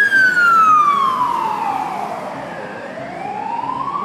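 Emergency-vehicle siren wailing. It slides slowly down in pitch for about two and a half seconds, then starts climbing again.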